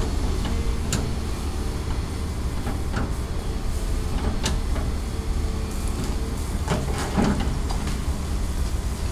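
Volvo long-reach demolition excavator's diesel engine running steadily under hydraulic load, with a few sharp cracks and knocks of brick masonry breaking and falling as the bucket tears at the wall.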